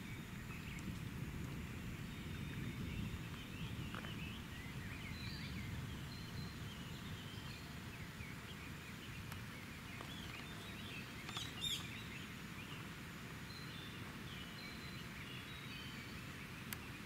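Wild birds chirping and calling in many short high notes scattered throughout, over a steady low outdoor background. A brief sharper sound stands out a little past the middle.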